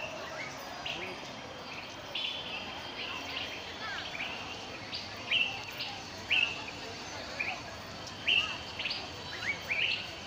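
Birds chirping in repeated short, sharp calls, a few louder ones in the second half, over a steady background of outdoor noise.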